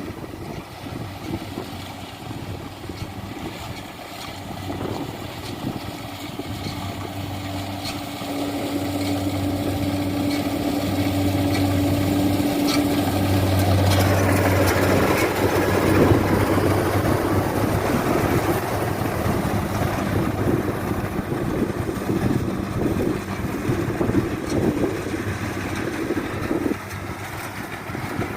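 Rice combine harvester's engine running steadily, growing louder about halfway through and easing off slightly near the end.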